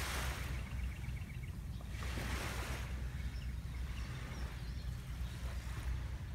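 Small waves on calm sea lapping onto a sandy beach, washing in at the start and again about two seconds in, over a steady low rumble.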